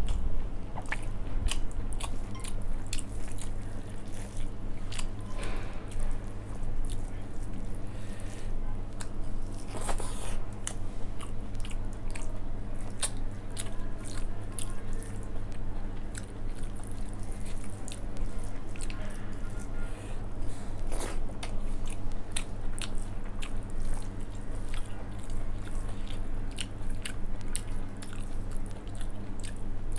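Close-miked chewing and wet mouth clicks of someone eating rice with dal and soya chunk curry, with squishes of fingers mixing the rice on a steel plate, over a steady low hum.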